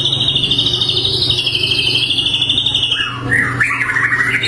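White-rumped shama (murai batu) singing: a long, fast, high trill, then about three seconds in a run of varied, lower warbling notes.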